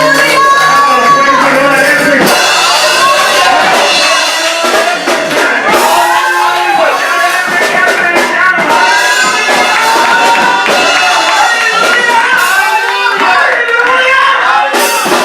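Lively church praise music with drums, with many voices singing and calling out over it.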